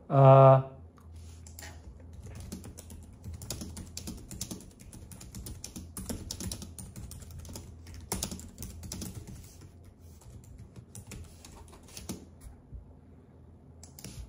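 Typing: a long run of irregular light clicking taps, after a short vocal sound from a man right at the start that is the loudest thing heard.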